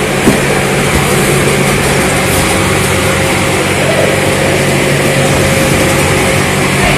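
Machinery running steadily with a low engine-like hum and a constant hiss over it, with a brief knock of a carton being handled shortly after it starts.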